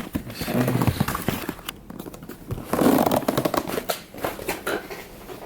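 Close handling noise of a leather armrest cover being pulled and stretched over a console lid's padding: rustling and scraping with many sharp clicks and knocks, loudest about a second in and again near three seconds.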